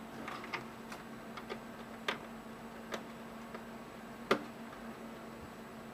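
Scattered light plastic clicks and taps of a SATA power cable and connector being handled and pushed onto a DVD drive, with one sharper, louder click about four seconds in. A steady faint hum runs underneath.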